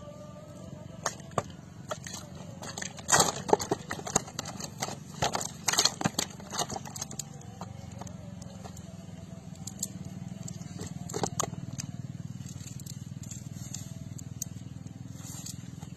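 Nylon cast net rustling and crackling as fish are worked out of its mesh by hand, in clusters of sharp clicks that are thickest about three and six seconds in, with a few more near eleven seconds.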